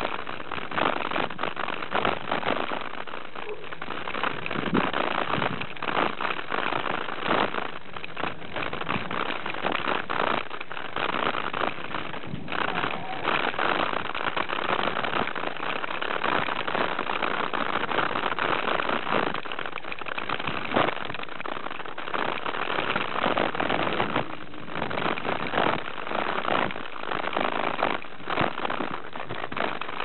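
Mountain bike ridden fast down a dirt singletrack: a steady rush of wind noise on the camera microphone, with constant rattling and knocks as the bike runs over the rough trail.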